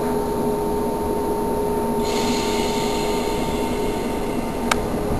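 Electric multiple unit standing at the platform, its electrical equipment humming with several steady tones over a low rumble. A hiss joins about two seconds in, and there is a single sharp click near the end.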